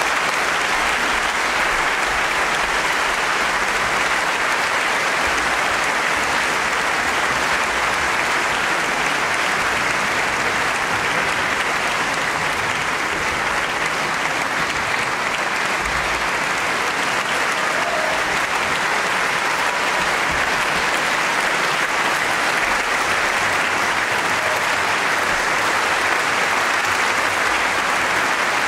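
Steady applause from a large audience, joined by orchestra players clapping.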